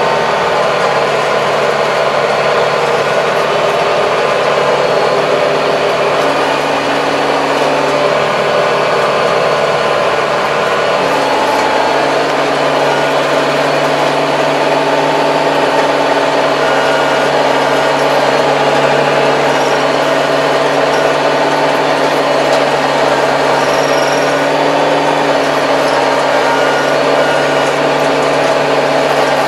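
75 hp Kubota tractor's diesel engine running steadily under load, with its rotary tiller working through soil and overgrown weeds, heard from inside the closed cab.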